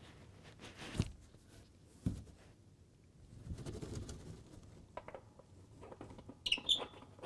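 Quiet handling as the air-inlet vents at the base of a 55-gallon steel barrel charcoal kiln are capped to shut off the air: two soft knocks about one and two seconds in, rustling and small clicks, and a brief high chirping near the end.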